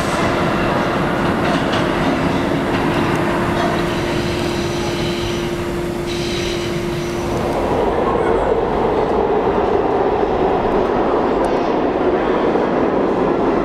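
R46 subway train pulling out and rumbling away into the tunnel, with a steady hum. About halfway through the sound changes abruptly to the rumble and rail clatter of a subway train running in another station.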